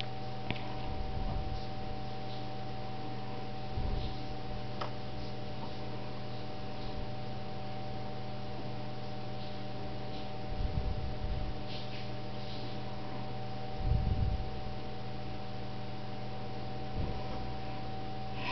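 Steady electrical hum with a faint higher tone, broken by a few soft low thumps and small clicks.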